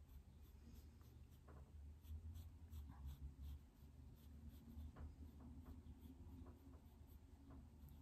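Faint scratching of a pencil on drawing paper, a series of short, light strokes.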